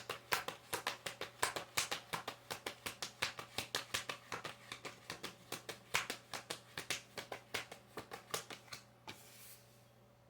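Tarot cards being shuffled by hand: a fast run of light card clicks, about five or six a second, that stops about nine seconds in. A short soft rustle follows.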